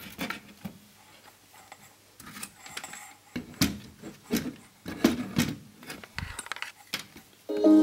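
Irregular light clicks, taps and clatter from a digital multimeter and its test leads being picked up and handled over a TV power-supply board. Plucked-string background music comes in just before the end.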